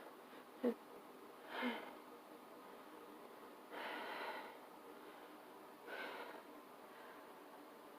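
A person's faint breathing and nasal sounds, four in all: a short sharp one just under a second in, a brief voiced catch of breath, then two longer breathy ones about two seconds apart.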